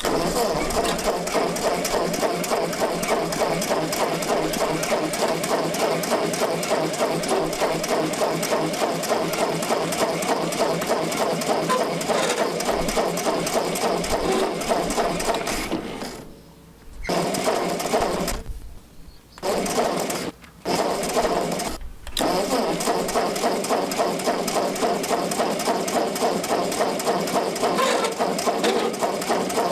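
Ford 8N tractor's four-cylinder engine being started, a fast, steady mechanical clatter. It breaks off in several short pauses about two-thirds of the way through, then carries on.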